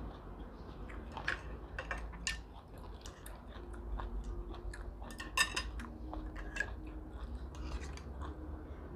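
Eating at the table: chopsticks and a spoon clicking and scraping against a scallop shell and a porcelain bowl, scattered light clicks with a sharper clink about five seconds in, along with chewing.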